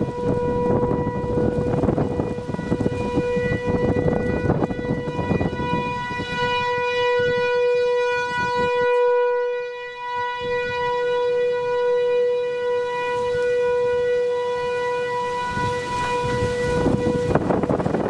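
508 rotating outdoor warning siren sounding a steady single tone, swelling to its loudest about halfway through as the turning head sweeps past, then fading. Strong gusting wind buffets the microphone, heaviest early and near the end.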